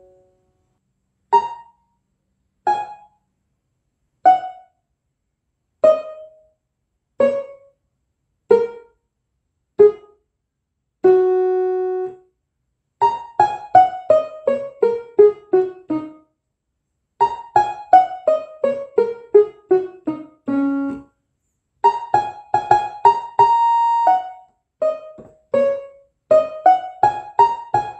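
Electronic keyboard played to imitate rain: first single short, quickly fading notes about every second and a half, stepping downward, then a held note. After that come fast descending runs of short notes, several a second, repeated over and over like falling raindrops.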